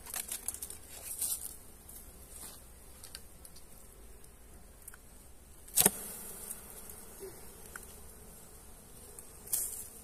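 Honeybees buzzing steadily around a log hive, with light clicking and rustling as the wire binding the hive is untied. One sharp knock about six seconds in is the loudest sound.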